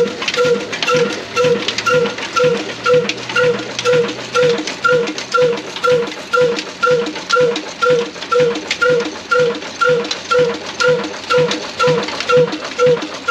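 Old desi "black engine", a single-cylinder stationary diesel with heavy spoked flywheels, running slowly at a steady, even beat of about two firing strokes a second.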